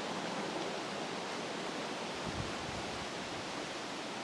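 Steady rushing of a mountain creek running over rocks, with one soft low thump about two and a half seconds in.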